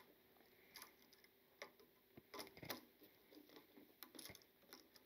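Near silence with faint, scattered small clicks and ticks of metal being handled as a black wire is hooked around a single-pole switch's terminal screw.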